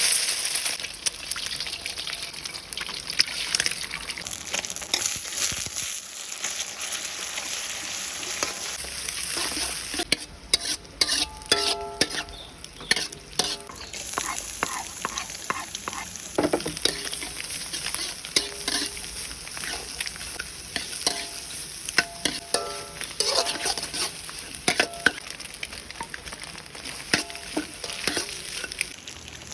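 Food sizzling as it fries in hot oil in a pan, with a spatula stirring and scraping against the pan. A few short ringing clinks of the utensil on the pan come in the middle and later on.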